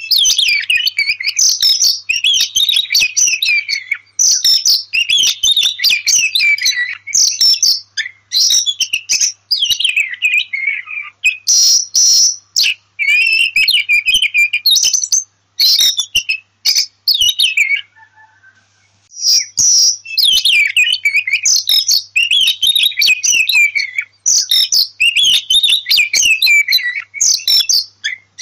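Oriental magpie-robin (kacer) singing a long, varied run of whistled and chattering phrases, with a brief pause about two-thirds of the way through.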